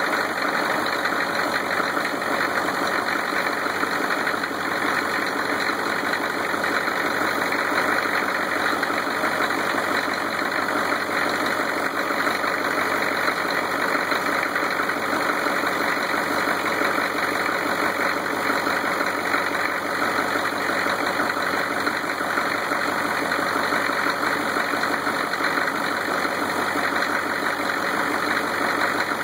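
Peninsular Marine 6.5 turbo-diesel V8 idling steadily, warming up shortly after a cold start.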